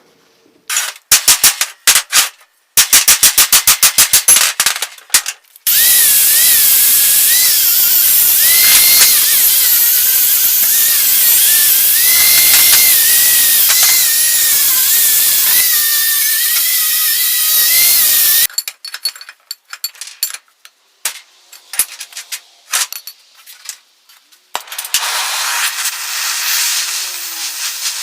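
A handheld power tool runs steadily under load for about twelve seconds, its whine wavering. Before it come quick runs of sharp clicks or taps, after it scattered clicks, and a hiss starts near the end.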